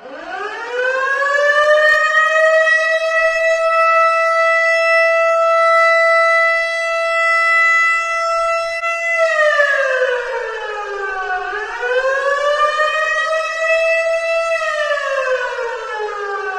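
Air-raid siren wailing: its tone climbs at the start, holds a long steady pitch, sags lower about ten seconds in, climbs back up and falls away again near the end.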